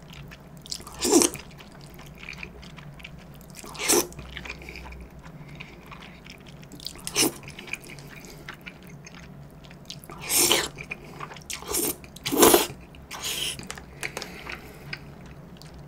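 Black-bean jjajangmyeon noodles being slurped from chopsticks: several short, sharp slurps spaced a few seconds apart, with quiet chewing between them.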